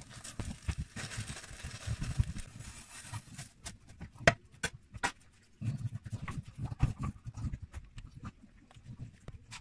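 Kitchen handling sounds: a frying pan and fork clink as the omelette is slid onto a plate, with a few sharp clicks about four to five seconds in, over an irregular low rumbling.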